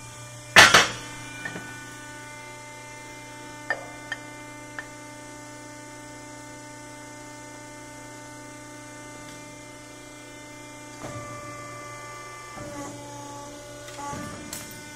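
Steady electrical hum with a loud metal clank about half a second in and a few light clicks a few seconds later.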